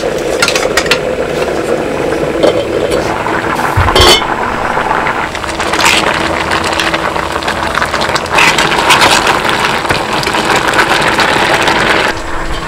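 A wooden spoon stirring thick curry in a clay pot, scraping and clinking against the pot, over a crackling fire in a sawdust stove.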